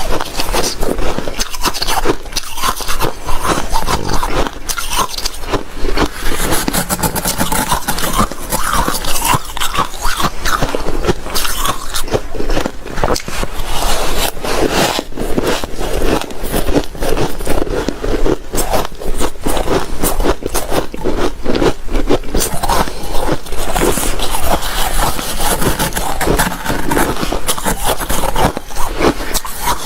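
Close-miked shaved ice being scooped and bitten: a dense, continuous run of crisp crunching and scraping.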